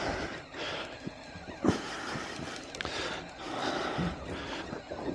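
Wind and sea noise swelling and fading around a small open boat, with one sharp knock about a second and a half in.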